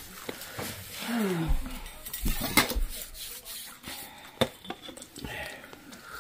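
Crockery and cutlery clinking and clattering as tea and snacks are handled, with a few sharp knocks, the loudest about two and a half and four and a half seconds in.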